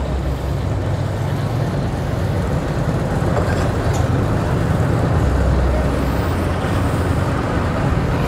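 A steady low engine rumble, like motors idling, over outdoor background noise.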